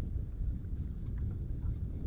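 Wind buffeting the camera microphone on open water: a steady low rumble, with a few faint light ticks over it.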